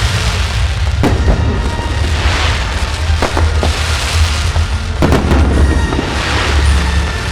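Aerial fireworks display: sharp bangs about every two seconds, between them bursts of crackling, over a steady low rumble.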